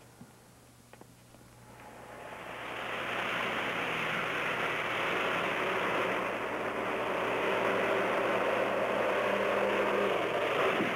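Cars driving along a dirt road: steady engine and road noise that fades up about two seconds in and holds.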